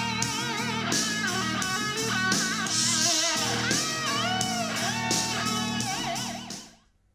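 Guitar-led music played back through a small portable Bluetooth speaker as a sound test, fading out near the end.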